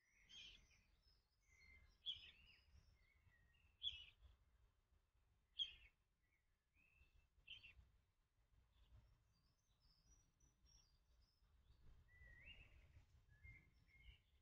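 A nestling bird calling for its parent: a series of short, sharp calls about every two seconds, then softer, scattered chirps, over a faint low rumble.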